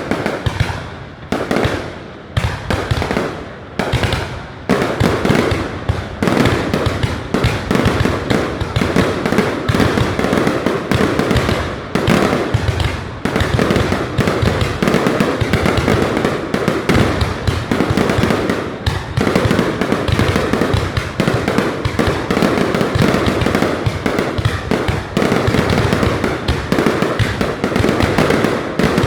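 Fireworks display: aerial shells bursting, loud, as separate bangs about once a second at first, then from about five seconds in a dense, continuous barrage of overlapping bangs.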